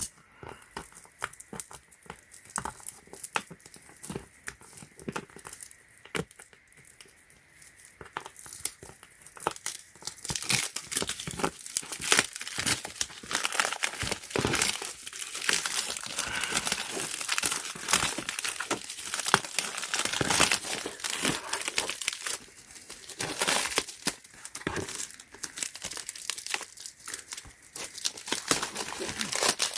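Packaging of a screwdriver set being torn open and crinkled by hand: irregular crackling and tearing, sparse at first and busier and louder from about a third of the way in.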